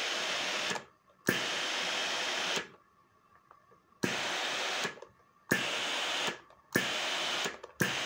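Vestel steam generator iron letting out short bursts of hissing steam, about six in a row, each starting with a sharp click and separated by short quiet gaps. The steam is flowing again, the fault that kept the iron from steaming now cured.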